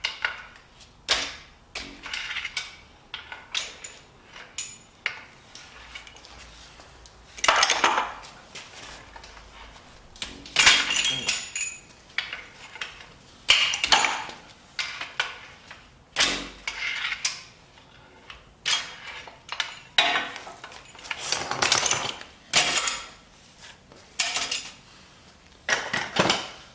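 Steel engine parts and tools clanking and clinking: main bearing cap bolts and caps being pulled from a 5.3 LS V8 block and set down, a string of sharp metal knocks with a few longer clattering stretches.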